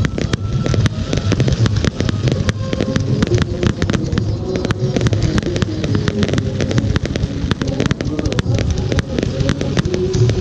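Fireworks display: aerial shells bursting in rapid, overlapping bangs and crackles, one after another with no pause, over a continuous low rumble.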